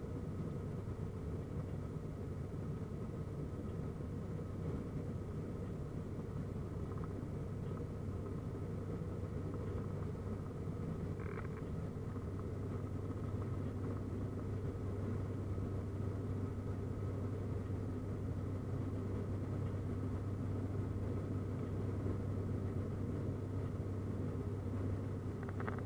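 Steady low drone of a turboprop airliner in cruise, heard from inside the cabin, with a fainter steady high tone above it.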